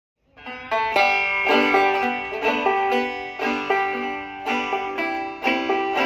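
Five-string Nechville Phantom banjo with steel strings, played clawhammer style. The playing starts from silence about a third of a second in and runs as a steady, evenly paced tune.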